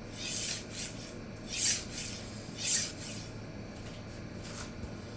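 Steel knife edge scraping across a resin-bonded diamond sharpening stone in a few separate strokes, two of them louder in the middle: passes that push the burr back along the edge.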